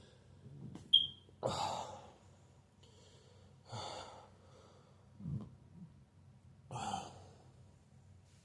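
A person breathing out audibly three times in short puffs, with a sharp click about a second in.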